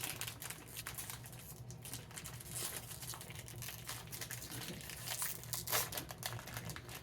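Plastic snack wrapper crinkling as it is handled and unwrapped: a dense run of small crackles.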